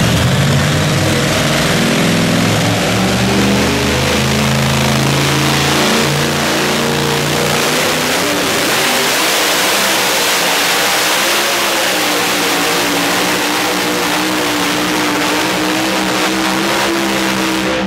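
Supercharged engine of a two-wheel-drive pulling truck running flat out while it drags a weight-transfer sled. Its pitch climbs in steps over the first few seconds, then holds high and steady.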